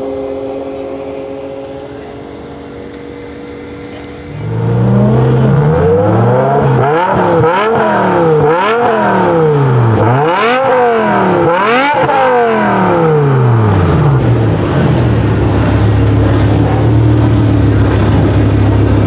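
A BMW M5 E60's 5.0-litre V10 on an Eisenmann race exhaust, revved repeatedly while standing: several quick blips rise and fall, then it settles back to a steady, deep idle. Before that, a fading drone of distant cars running on the drag strip.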